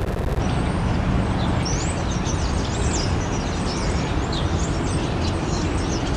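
Steady low traffic rumble of a city street, with many quick high bird chirps over it from about a second and a half in.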